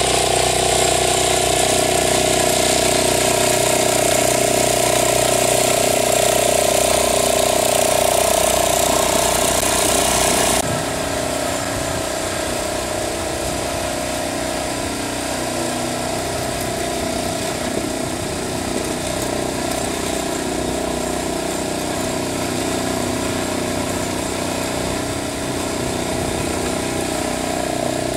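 Small ride-on lawn tractor engine running steadily while it pushes a snow-plow blade. The sound drops suddenly to a quieter, steady level about ten seconds in.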